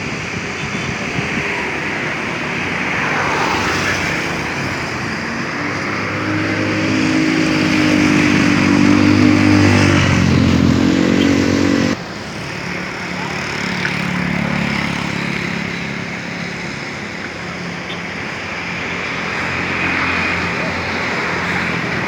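Motor engine running with a deep, droning hum over a steady wash of noise. The hum swells to its loudest about halfway, rises in pitch, then cuts off abruptly, and a weaker engine hum carries on afterwards.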